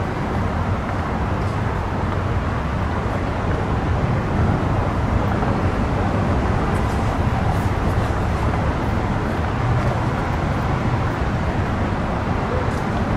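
Steady outdoor background rumble with no distinct events, heaviest in the low end, like road traffic noise or wind on the microphone.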